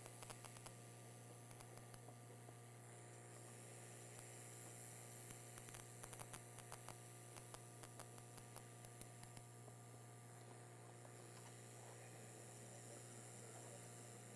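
Near silence: a steady low electrical hum with faint, scattered clicks.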